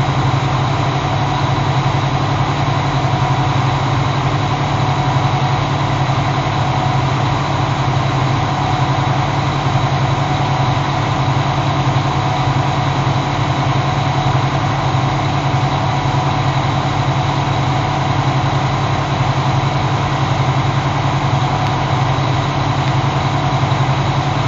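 Diesel engines of an HT400 twin pumping unit running steadily, a loud, even machine drone that holds unchanged.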